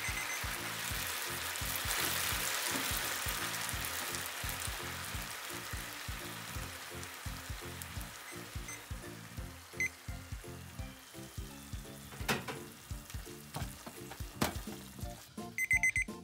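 Spaghetti and pancetta sizzling and bubbling in a frying pan as the starchy cooking liquid boils down. The sizzle is loudest a couple of seconds in and slowly fades. Later the pasta is tossed in the pan, with two sharp knocks of the utensil against it.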